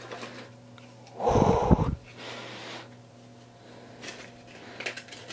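A person snorts loudly through the nose about a second in, followed by a softer breath. A few light clicks near the end.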